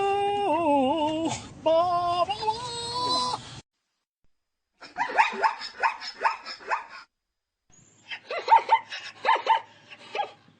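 Zebra barking: two bouts of rapid, repeated yipping barks separated by a short pause. They come after a few seconds of a held, wavering voice-like tone and a sudden silence.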